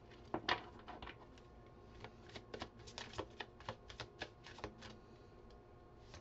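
Tarot cards being shuffled and handled: a run of light, irregular clicks and snaps, several a second, thickest from about two to five seconds in.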